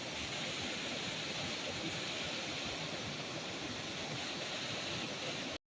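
Steady rush of water from a small waterfall, cutting off suddenly near the end.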